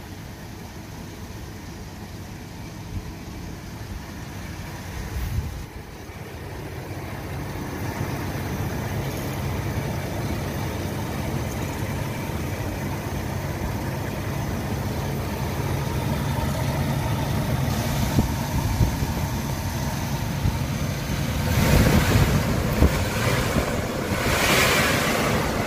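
Chevrolet S10 pickup engine idling steadily, heard from over the open engine bay. Two brief louder rushes of noise come near the end.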